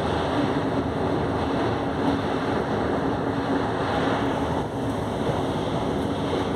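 Steady rumble and rush of a passenger train running along the rails, heard from inside the carriage, with a faint steady hum. Another train passes close on the next track.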